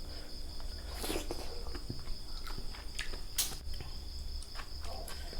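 Insects chirring in a steady high tone, with scattered small clicks and two brief rustles, one about a second in and one past the middle.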